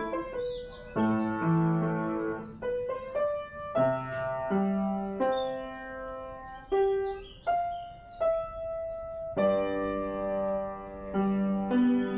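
Solo piano music: a slow melody of held notes over changing chords.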